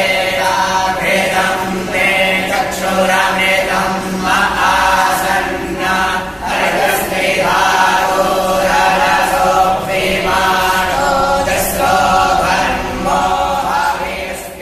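A group of boys chanting a mealtime prayer in unison, a steady group chant in phrases with short breaks between.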